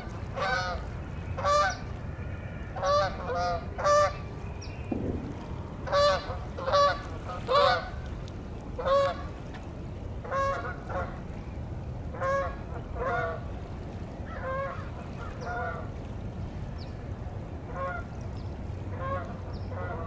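A small flock of geese honking in flight, one call after another, loud and frequent for the first nine seconds or so, then fainter and more spaced out. A steady low rumble runs underneath.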